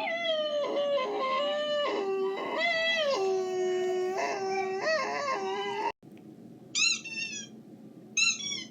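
A dog howling in long, wavering notes. About six seconds in it cuts off suddenly, and two or three short high whines follow.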